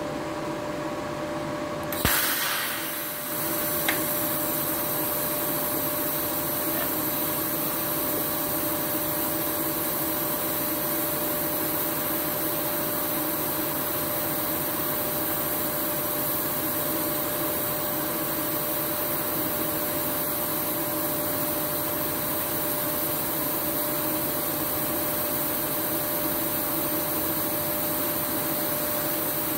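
TIG welding arc on 6 mm steel plate, struck with a sharp crack about two seconds in, then running as a steady even hiss. Underneath is a constant electrical hum with a mid-pitched whine from the machines.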